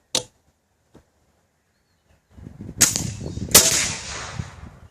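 Homemade .357 big-bore air rifle firing: a small click near the start, then, after a quiet spell, two sharp cracks under a second apart, the second the louder, each trailing off over about a second.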